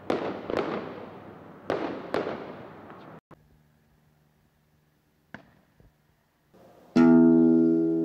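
Four fireworks bangs in the first couple of seconds, each with a long echoing tail, then a quiet stretch. Near the end, guitar music comes in with a loud sustained chord.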